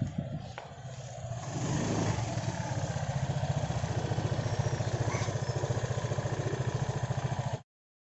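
Honda PCX 150 scooter's single-cylinder engine running again after its dead-battery problem. It is heard first briefly on the move, then from about two seconds in idling steadily with a fast, even putter. The sound cuts off abruptly near the end.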